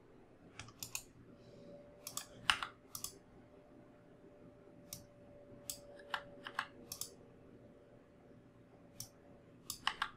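Quiet computer mouse and keyboard clicks, sharp and irregularly spaced, some in quick pairs, over a faint steady hum.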